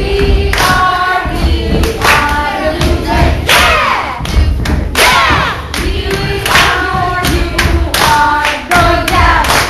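A group of children yelling and chanting together in loud, sing-song shouts, some held and some swooping up and down in pitch, over a steady low thumping rumble.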